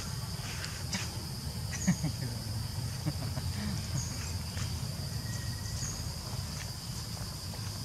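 Insects droning steadily at a high pitch, with shorter chirps on top. There are a few light clicks and knocks, the loudest about two seconds in.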